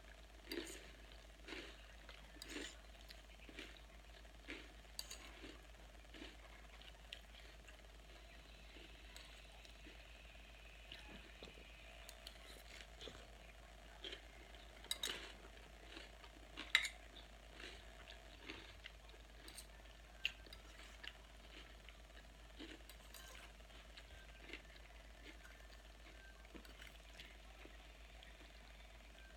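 Faint chewing of a crunchy salad of lettuce and croutons, a crunch about once a second, with a few sharper clinks of a utensil against the dish, two of them louder a little past halfway.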